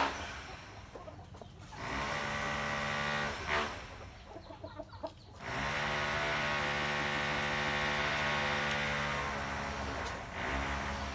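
Roosters clucking in short bits, broken twice by a long, steady drone: one about a second and a half long, then a louder one lasting over four seconds.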